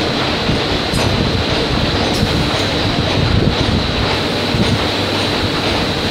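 Loud, steady din of factory machinery: a constant high whine over a dense, uneven rattle.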